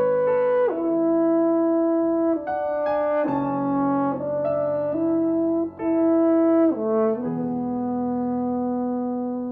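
French horn playing a slow melody of long held notes over piano accompaniment, ending on a long sustained low note.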